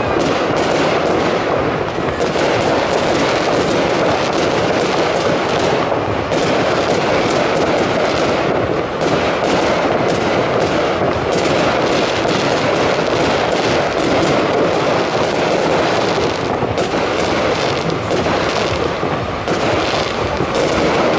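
Fireworks display: a fast, continuous string of bangs and crackles from shells bursting overhead.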